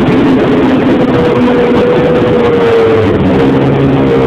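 Snowmobile engine running steadily, its drone wavering slightly in pitch.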